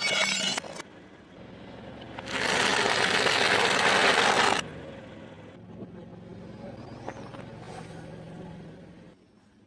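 A car tyre rolling over and crushing objects on concrete. Brittle plastic cracks and crackles briefly at the start. Then, for about two seconds, a heap of dry penne pasta gives a loud, dense crunching. After that the sound drops to a softer, quieter pressing of a soft object under the tyre.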